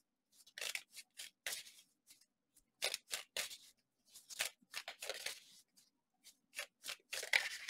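A deck of tarot cards being shuffled and drawn by hand: a series of short, irregular papery swishes and snaps with brief pauses between them.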